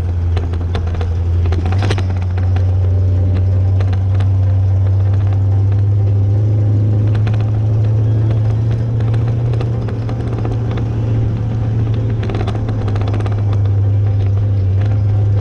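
Ford F-250 highboy pickup driving on a dirt road: a steady low engine and drivetrain rumble, with scattered short rattles and clunks.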